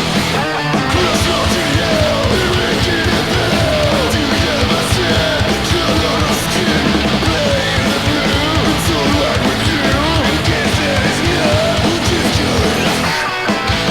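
Punk 'n' roll song played from a vinyl record: a loud, dense full-band mix with distorted electric guitars. The low end drops out briefly near the end.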